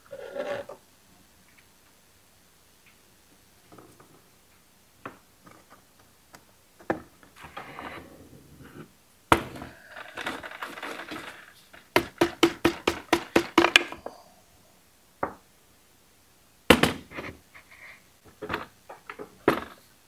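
Workbench handling noises as old fuel line is removed from a string trimmer and handled with small hand tools: scattered clicks and knocks, a short rustle about halfway, then a quick run of about ten sharp clicks.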